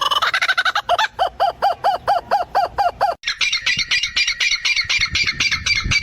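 A bird squawking in a fast series of repeated calls, about four a second. About three seconds in, these give way to a higher-pitched, even faster run of calls.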